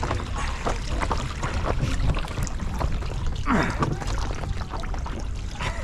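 Water sloshing and splashing in and around a swamped Oru Beach LT folding kayak as it is handled in the water to empty it, with short irregular splashes.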